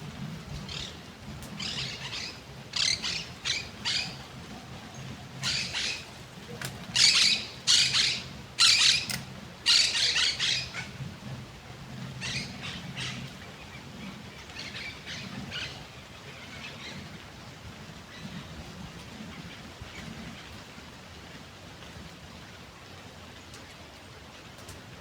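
Birds calling in a series of short, harsh, squawky calls, thickest and loudest a third of the way in and thinning out after about halfway, over a steady outdoor hiss and a faint low hum.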